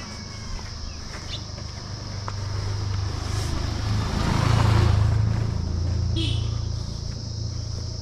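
A motorcycle approaches and passes close by, its engine hum growing louder to a peak about halfway through, then fading away. A steady high buzz runs underneath.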